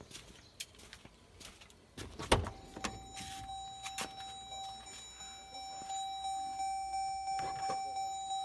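A thump about two seconds in, then a small electric motor starts and runs with a steady whine that grows louder and pulses a little over twice a second.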